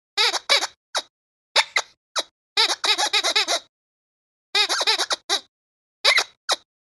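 Rubber squeaky dog toy squeezed in quick bursts: short, high squeaks in groups, with a fast run of about eight squeaks in the middle.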